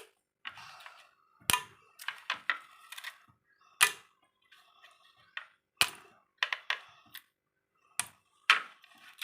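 Ice cubes being dropped by hand into a container, making a string of sharp, irregular clinks and knocks.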